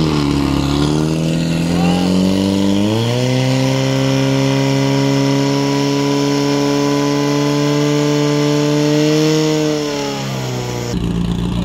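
Portable fire pump's engine under load. It rises in pitch about three seconds in, runs at steady high revs while pumping water out through the hoses to the nozzles, and drops in pitch near the end.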